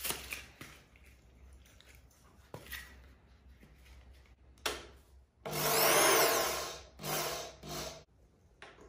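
Corded Bosch hammer drill, chuck empty, briefly triggered: the motor speeds up and winds back down, then runs a second, shorter burst. Near the start there is a crinkle of plastic blister packaging.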